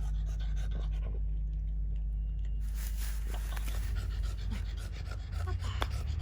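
A dog panting quickly, about five breaths a second, with a short pause about a second in before it picks up again.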